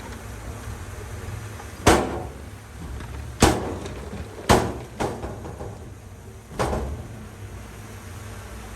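Heavy earthmoving machinery's diesel engine running steadily low, with five sharp bangs at uneven intervals, the loudest about two and three and a half seconds in.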